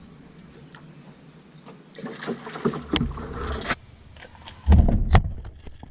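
Rustling and scattered knocks in a canoe, with a cluster of heavy low thumps and a sharp click about five seconds in.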